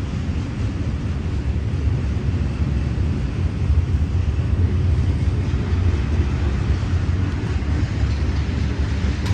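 Norfolk Southern freight train rolling past, a loud, steady low rumble of wheels and cars on the rails.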